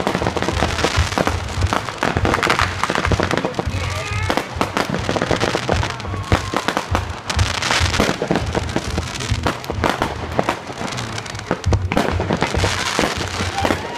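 Consumer fireworks going off in a dense run: a rapid, continuous stream of bangs and crackles.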